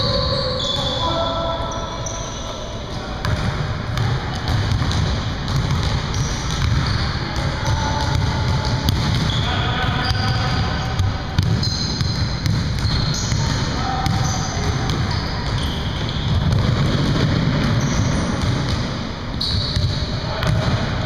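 Basketballs bouncing on a hardwood gym floor as players dribble, with short, sharp sneaker squeaks scattered throughout and background voices.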